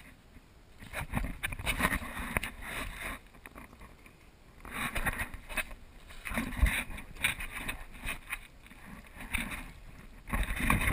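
Water splashing and sloshing against a kayak hull in irregular bursts, heard close up from a camera at the waterline.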